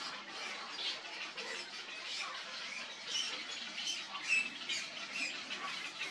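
Many birds calling at once: a dense, unbroken chatter of short squawks and chirps.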